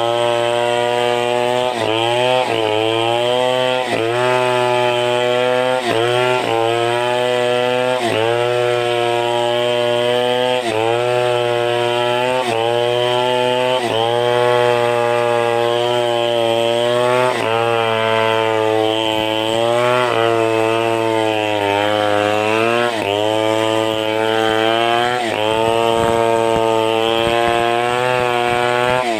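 Chainsaw running under load as it cuts through a sengon log. The engine tone stays high and steady but sags briefly in pitch every second or two as the chain bites into the wood.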